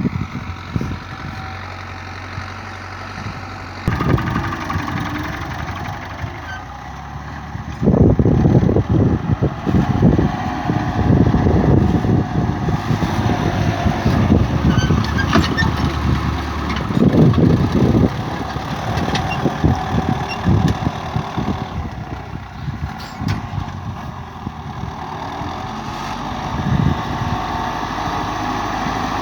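Tractor engine running steadily while plowing, louder and rougher for about ten seconds in the middle.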